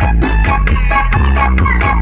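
Loud electronic dance music with heavy bass and a fast, steady beat under a plucked melody, played through the Brewog line-array sound system.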